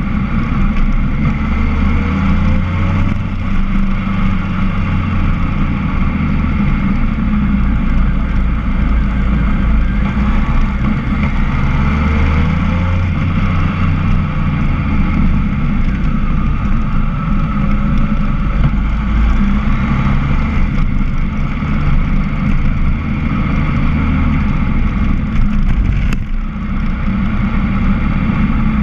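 Motorcycle engine running while riding along, recorded from on the bike. The sound is loud and steady, and the engine pitch rises briefly a few times through the bends.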